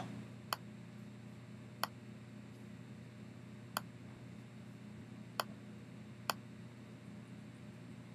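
Computer mouse clicking five times, single sharp clicks spaced unevenly, over a low steady hum.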